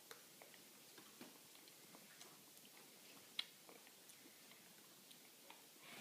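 Faint chewing with small wet mouth clicks as Maggi instant noodles are eaten, and one sharper click about three and a half seconds in.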